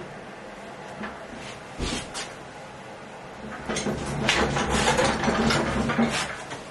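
Small castor wheels of a bandsaw wheel dolly kit rolling across the floor under the heavy saw, with a few knocks of the frame and handle early, then a rumbling rattle for about three seconds as the saw is pushed along.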